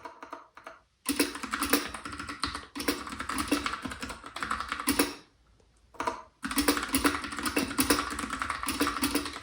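Fast typing on the Freewrite Smart Typewriter's mechanical keyboard: a rapid run of key clicks starting about a second in, a brief pause about five seconds in, then another run of typing.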